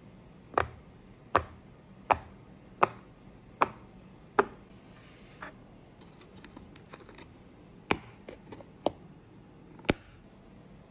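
Silicone pop-it fidget toy bubbles being pressed in, six sharp pops at an even pace of a little more than one a second. After that come small plastic ticks and a few sharp clicks as the plastic screw cap of a juice carton is twisted off.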